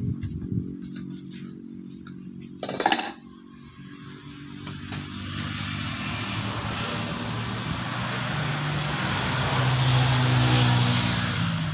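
A motor vehicle's noise swells over several seconds, loudest near the end, then eases off. A sharp metallic clink comes about three seconds in.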